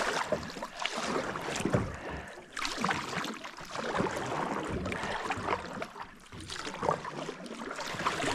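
Kayak paddle dipping and splashing through the water with each stroke, with a sharp knock at the very start.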